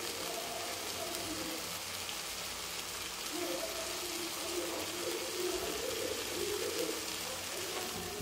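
Hot prawn thokku gravy sizzling softly in the kadai, a steady faint hiss as the cooking winds down.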